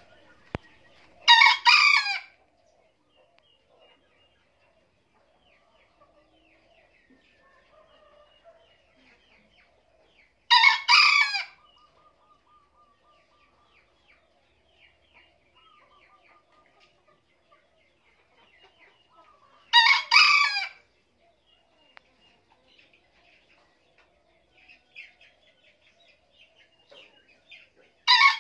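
A bekisar bantam rooster, a green junglefowl crossed with a bantam Phoenix, crowing. It gives three short crows about nine seconds apart, each about a second long, and a fourth begins near the end.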